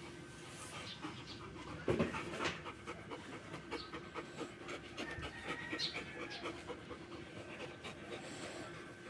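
Golden retriever panting quickly and evenly, with a brief louder noise about two seconds in.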